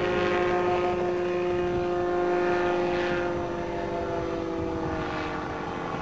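Gyroplane's 120 hp Yamaha snowmobile engine and pusher propeller running in flight overhead: a steady droning note whose pitch sinks slowly through the second half.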